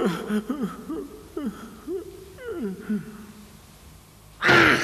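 A cartoon character's exhausted panting after a screaming fit: short falling groans on each breath, about two a second, growing fainter over three seconds. A sudden loud cry breaks in near the end.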